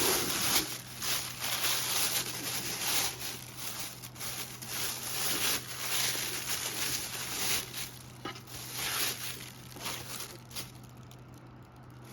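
Plastic packaging crinkling and rustling in irregular handling noises as the parts of a toothbrush holder are unwrapped, quieting near the end.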